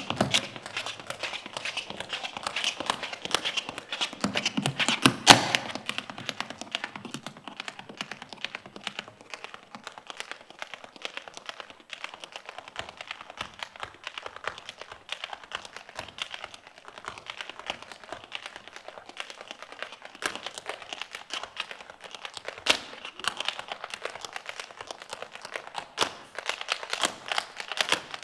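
Tap shoes striking a stage floor in an unaccompanied tap-dance routine: rapid runs of metallic clicks and heavier stamps, busiest in the first five seconds, with a loud stamp about five seconds in and another near the end.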